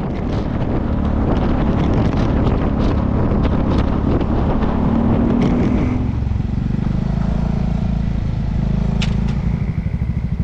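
Honda ADV350 scooter's single-cylinder engine running under way with heavy wind and road noise. About six seconds in the wind noise drops away as the scooter slows, leaving the engine running with a steady, even pulsing toward idle, and a single click near the end.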